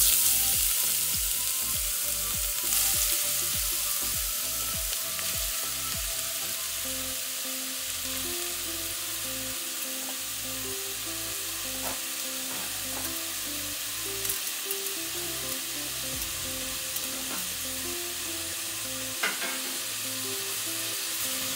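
Grated carrots sizzling as they fry in hot ghee in a saucepan. The sizzle is loudest at the start as the carrots go into the fat, then eases over the first few seconds to a steady sizzle. A few short ticks come from stirring with a silicone spatula.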